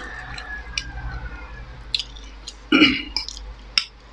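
A person chewing a mouthful of spicy noodles, with scattered small mouth and fork clicks. There is a short burp just under three seconds in.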